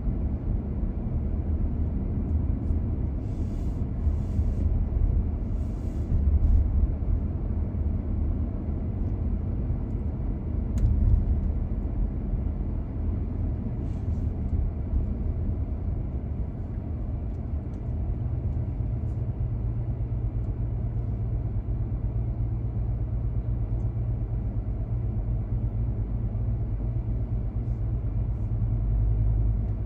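Car driving on city streets: a continuous low road and engine rumble. There are a few faint ticks a few seconds in and a louder swell about 11 seconds in. From about 18 seconds on, the rumble settles into a steadier low hum.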